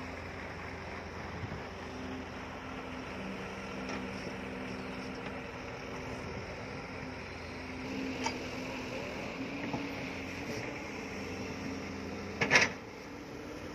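Hitachi compact crawler excavator's diesel engine running steadily with a hydraulic hum as it digs, with one sharp knock near the end.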